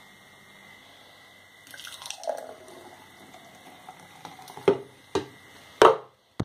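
Thick blended frozen-berry smoothie pouring from a plastic blender cup into a glass jug. Three sharp knocks follow near the end, the last one the loudest.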